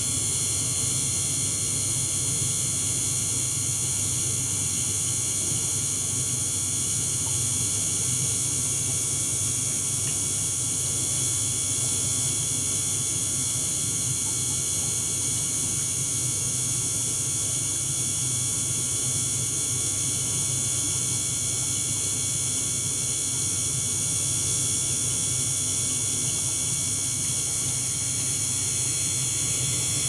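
A small liquid-circulation pump and an ultrasonic transducer run together in a water tub, making a constant hiss with several high steady tones over a low hum. Nothing starts, stops or changes.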